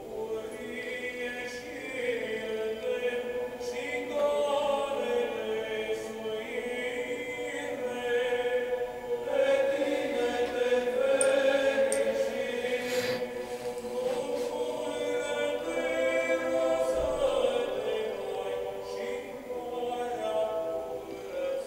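Background choir music: many voices singing slow, long-held lines.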